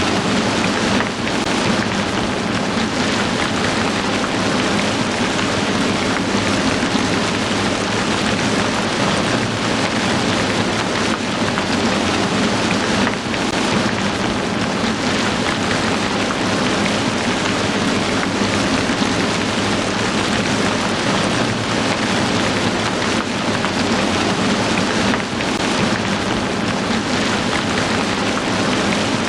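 Heavy rain falling steadily: a dense, even wash of drops with no break.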